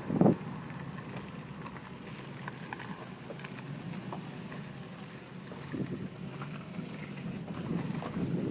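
Wind buffeting the microphone: a steady low rumble with a strong gust right at the start and softer gusts about six and eight seconds in.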